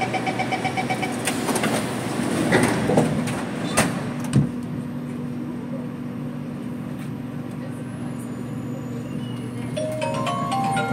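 Inside a C751B train: a rapid beeping chime for about the first second, then a few knocks and thumps as the sliding doors close, then a steady low hum at standstill. Near the end, the Fuji Electric IGBT-VVVF traction inverter starts up with a whine that climbs in steps as the train begins to accelerate.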